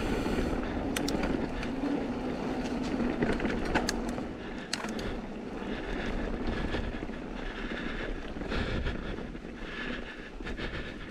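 Intense M16 downhill mountain bike rolling fast down a dirt trail: tyre noise and rumble, with sharp rattles and knocks from the bike over roots and rocks, and wind buffeting the helmet-camera microphone.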